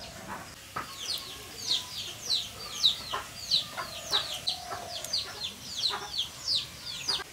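Chicks peeping: a quick run of short, high, falling cheeps, about two or three a second, with a few light knocks among them.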